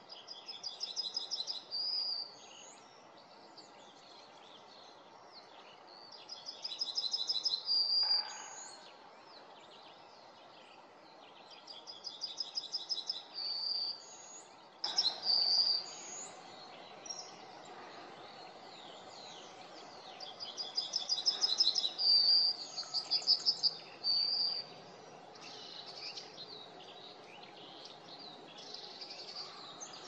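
Common chaffinch singing: about four song phrases, each a quick run of high notes ending in a flourish, spaced roughly six seconds apart. Fainter calls from other small birds come in between.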